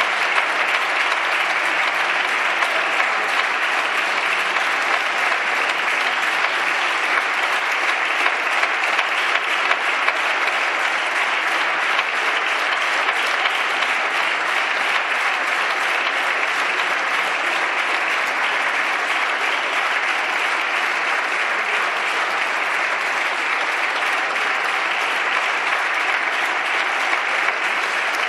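Sustained applause from many people clapping in a large, reverberant parliamentary chamber, steady and unbroken throughout.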